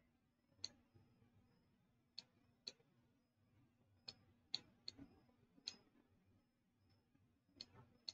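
Faint, sharp clicks, about nine of them at irregular spacing, as moves are made in a fast online blitz chess game on a computer, over a faint steady hum.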